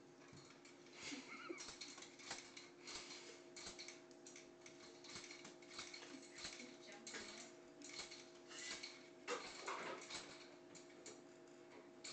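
Light, irregular clicks and taps of a baby bouncing in a doorway jumper, from the plastic seat and strap fittings and small feet on a tile floor, over a faint steady hum.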